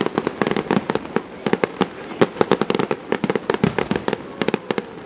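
Fireworks display: a dense, irregular barrage of sharp bangs and cracks from aerial shells bursting, several a second.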